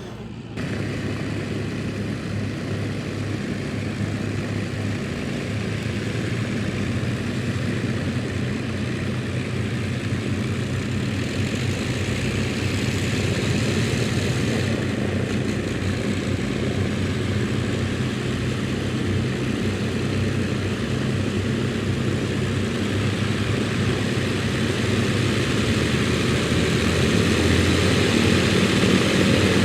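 Piston-engined propeller aircraft running with a steady engine note that grows gradually louder.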